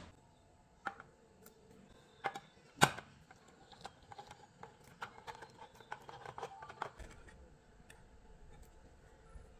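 Handheld can opener cutting open a steel food tin: a few sharp clicks and knocks, the loudest about three seconds in, then a run of quick small clicks for about three seconds as the cutting wheel is cranked around the rim.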